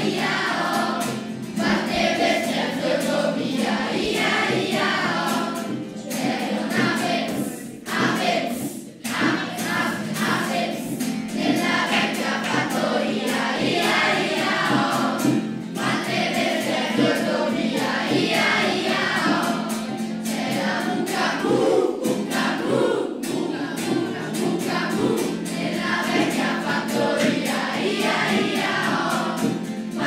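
Music: a choir singing a song.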